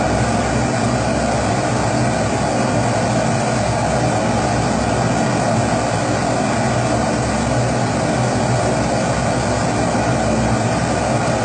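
Pressurised kerosene (Primus-type) stove burner running: a steady, unbroken rushing noise from the flame.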